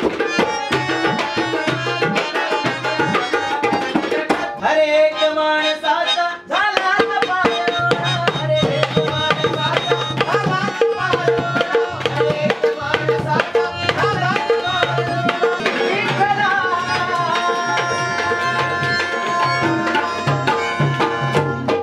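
Tabla and dholki drumming a fast, dense qawwali rhythm under harmonium, guitar and singing voices. The drums thin out briefly about five seconds in, then the full ensemble comes back in.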